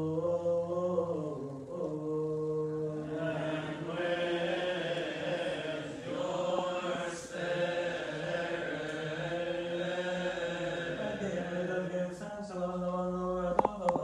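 Coptic liturgical chant: voices chanting long held notes that shift slowly in pitch, with a few sharp clicks near the end.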